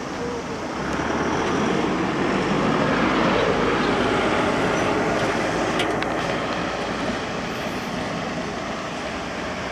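Keio Line electric train passing over the level crossing, its running noise swelling over the first few seconds and then slowly fading, with a few short clicks about six seconds in.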